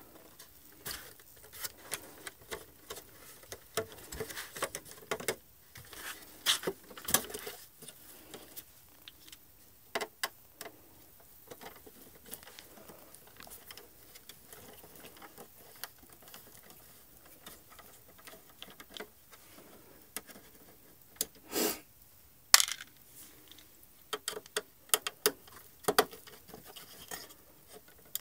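Irregular clicks, taps and light knocks of hard plastic parts and small hand tools being handled, with a brief scraping rustle about two-thirds of the way in followed by the loudest click.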